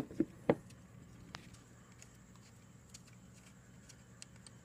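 Open-end wrenches clicking against the fitting nuts of a car's air-conditioning line, a few sharp metal clicks in the first half second and one more a little over a second in, as the nuts are loosened. After that only a faint steady low hum.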